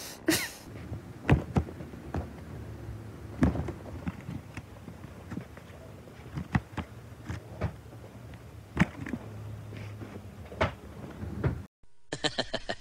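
A dozen or so irregular knocks and thuds, some sharp, spread over about ten seconds. Near the end it cuts to a steady rush of wind and rain.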